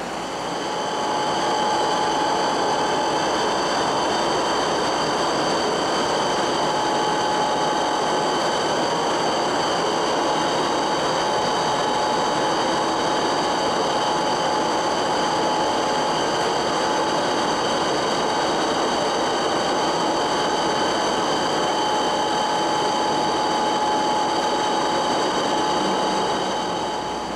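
A 1968 Rockford planer mill running under power: a steady mechanical hum with a held whine and thin high tones over it. It rises about a second in and tails off near the end.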